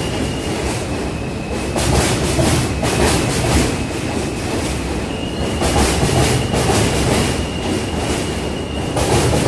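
New York City subway train (J line) running past close by: a steady rumble of the cars with the wheels clacking over rail joints now and then. A faint, thin, high wheel squeal comes and goes.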